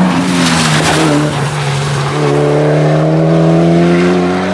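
Mitsubishi Lancer Evolution VIII rally car's turbocharged four-cylinder engine running hard as it passes on a wet road, with a brief rush of tyre spray about half a second in. From about two seconds in, the engine climbs steadily in pitch as the car accelerates away.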